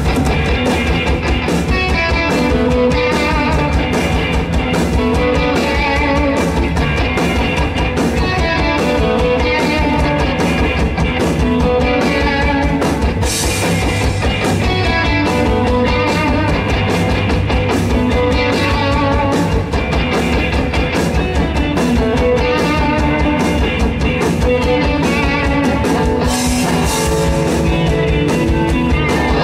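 A live rock band playing an instrumental passage of fuzz-toned 1960s–70s-style psychedelic rock: several distorted electric guitars over bass and a drum kit. The cymbals wash brighter about halfway through and again near the end.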